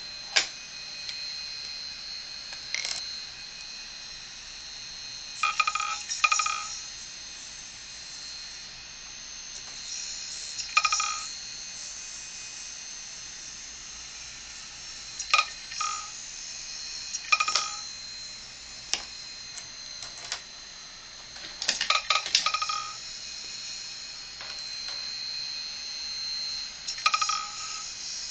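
Open hard drive running with its platter spinning, giving a steady high whine, broken every few seconds by short ringing squeals as a marker pen tip is pressed against the spinning platter.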